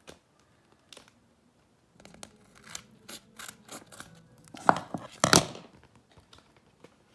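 Scissors cutting through taped paper, trimming off the excess: a few faint clicks, then a run of snips from about two seconds in, with the two loudest cuts close together a little past halfway.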